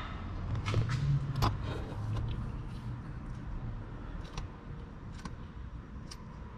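Scattered small metallic clicks and taps of a wrench working the 12 mm nut on a starter's main battery-cable terminal as it is broken loose, over a low steady hum.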